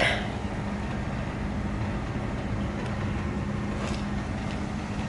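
Steady low hum and rumble of shop background noise, with a couple of faint ticks about three and four seconds in.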